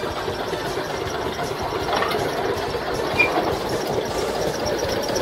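Jenbacher JW 15 narrow-gauge diesel locomotive engine running with a rapid, steady beat as it pulls passenger cars slowly past. A brief high squeak about three seconds in.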